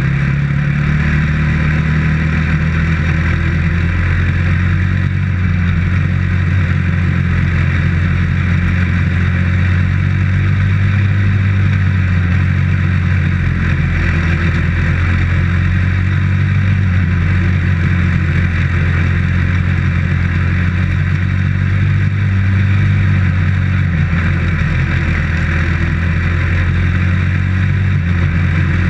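Dirt-track race car's engine running hard and steadily at a fairly even pitch, heard from inside the cockpit while lapping the track.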